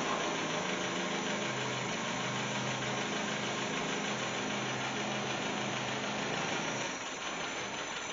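Freshly rebuilt Land Rover Series One four-cylinder petrol engine running steadily on its first start in about twenty years. It gets slightly quieter near the end.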